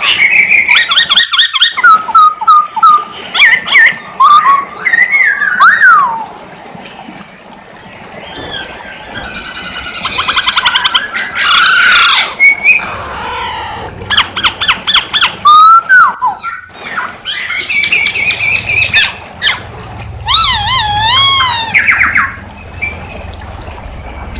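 Black-throated laughingthrush (poksay hongkong) in loud, varied full song: whistled notes and sliding glides mixed with fast rattling trills and warbled phrases, with a quieter pause about a third of the way in.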